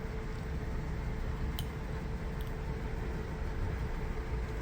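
A drum washing machine's newly replaced drain pump running with a steady, quiet hum. The grinding from the old pump's failed motor bearing is gone.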